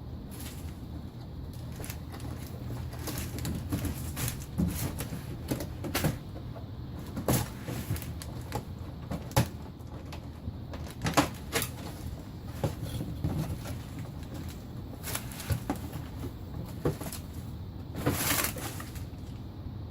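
Cardboard box and packaging being handled and opened: scattered knocks, taps and scrapes, with a longer rustling scrape near the end, over a steady low hum.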